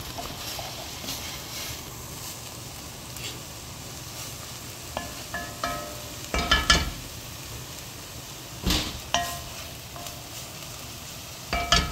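Onions sautéing in a pan: a steady sizzle, with a utensil stirring and clinking against the pan several times in the middle and again near the end.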